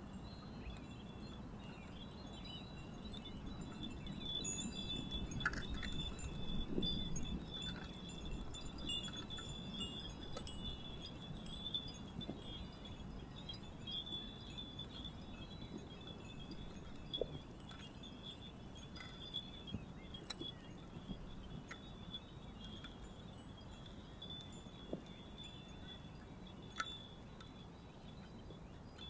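Many small Japanese iron wind bells ringing together in a light breeze: a continuous high tinkling sprinkled with single strikes. A low wind rush underneath swells a few seconds in.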